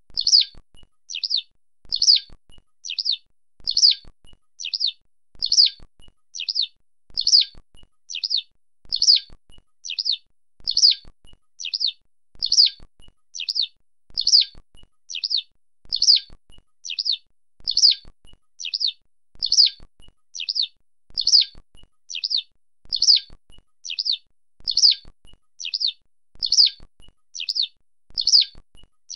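Eurasian skylark calling: a short, high double chirp, repeated at an even pace about once a second.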